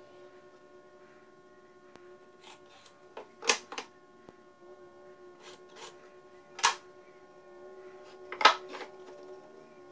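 Sharp knocks and clatters of a wooden board and a speed square being handled on a plywood workbench: two about three and a half seconds in, one near seven seconds, and the loudest pair about eight and a half seconds in. A faint steady hum sits underneath.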